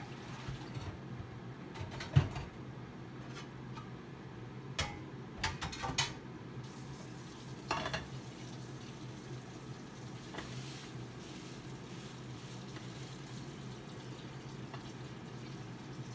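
Cookware being handled in a kitchen: sharp knocks and clinks of pots and utensils, the loudest about two seconds in, a few more around the middle, over a steady low hum.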